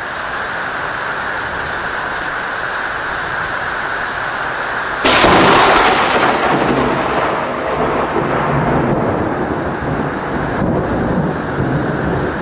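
Heavy rain hissing steadily, then about five seconds in a sudden, loud crack of thunder from a very close lightning strike, heard almost at once with the flash. The crack fades over the next few seconds into a rolling rumble under the rain.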